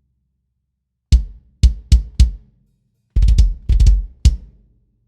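Drums of a DW Collector's Series almond/maple kit struck one at a time in a sound test. Four single hits with deep low end, then two quick flurries of strokes and a last single hit.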